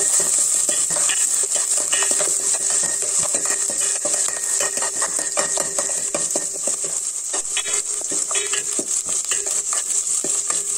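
Steel ladle stirring and scraping in a stainless-steel pot, with frequent clinks of metal on metal, while chilies, cumin seeds, ginger and garlic fry in hot oil with a steady sizzle.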